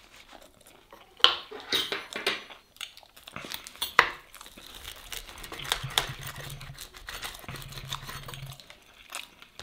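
Pizza cutter wheel crunching and scraping through a toasted baguette sandwich on a wooden cutting board, with a few sharp knocks of the blade against the board.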